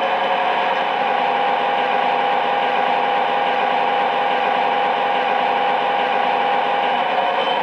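Diesel locomotive engine sound played through the small speaker of an MTH RailKing O gauge SD45 model, running steadily at one throttle setting. A steady whine sits over the engine sound and drops away near the end.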